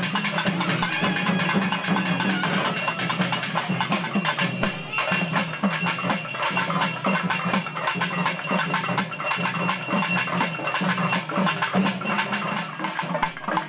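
Festival percussion music playing fast and without a break, its beats densely packed over a steady low band of sound.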